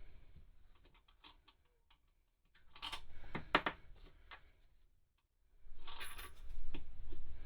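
Small clicks and rattles of square washers, fender washers and nuts being handled and fitted onto a toilet's closet-bolt studs, in two short bursts about three and six seconds in.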